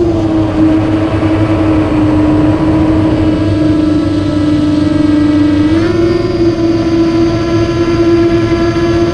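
Nine-inch FPV quadcopter's motors and propellers whining at a steady pitch, dipping slightly at the start and rising about six seconds in.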